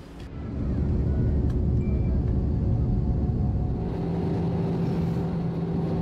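Jet airliner cabin noise: a steady low rumble that builds over the first second, joined by a steady hum a little past halfway.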